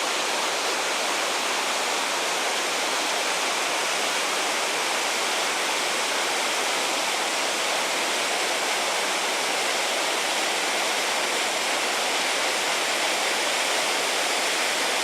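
A small waterfall rushing steadily as the water spills down a series of gentle rock steps.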